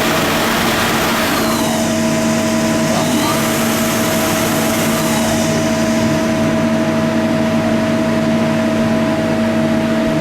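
Yang ML-25 CNC lathe running: a steady machine hum with a fixed whine over it, and a rushing hiss that dies away about halfway through.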